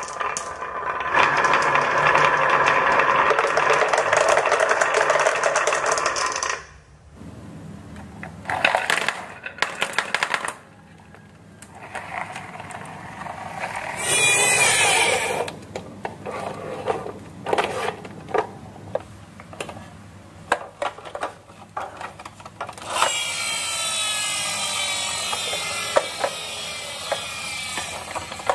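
Marbles rolling and rattling down the curves of a wooden wave-track marble run for the first six seconds or so, then scattered clicks and knocks as marbles drop and strike wood, with a short loud burst of rolling about halfway and another steady rolling sound for the last five seconds.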